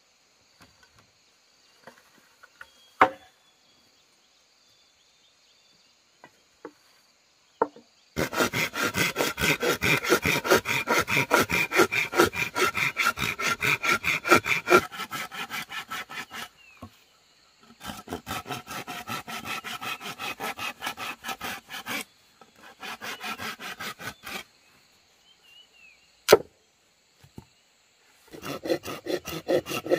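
Fast, regular back-and-forth strokes of a hand tool rubbing on wood, in four bursts separated by short pauses. A sharp knock comes about three seconds in and another near the end.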